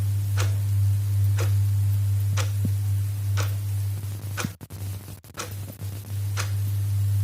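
Clock ticking the seconds, one sharp tick about every second, over a loud steady low hum. The sound briefly drops out about halfway through.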